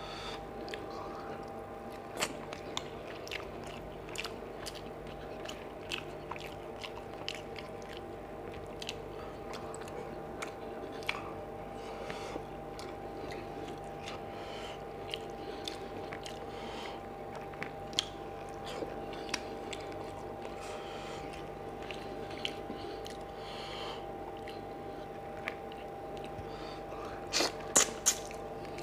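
Close-miked eating: chewing and wet mouth smacks with scattered clicks, from fish curry and rice eaten by hand. There is a brief run of louder smacks near the end as a handful goes into the mouth, over a steady faint hum.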